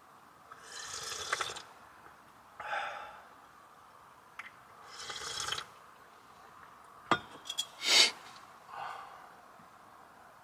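Water pouring or splashing in four short bursts, with a few sharp clicks and clinks about seven to eight seconds in, the loudest of them near eight seconds.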